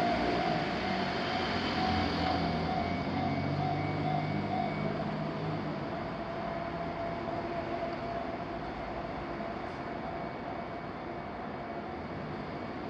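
Train running past a railroad crossing, a steady rumble with a constant tone in it that slowly fades as the train moves off.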